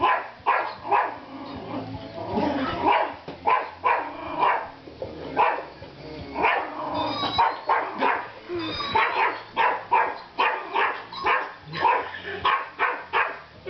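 Small dog barking over and over in short, sharp barks, about two a second.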